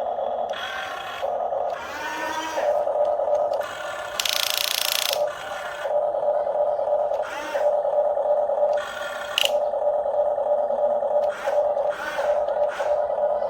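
RC toy excavator's small electric motors whining steadily as it works, with repeated short bursts of harsher gear and scraping noise as the grab moves and handles rocks.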